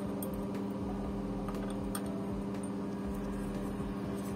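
Steady mechanical hum, as of a fan or small motor running, with one strong low tone and several overtones. A few faint light clicks sound over it.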